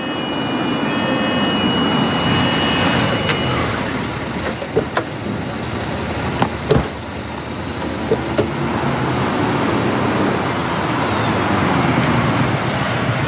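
Vehicle engines and road noise from an ambulance and other vehicles pulling up, with a few sharp clicks and knocks of vehicle doors around the middle.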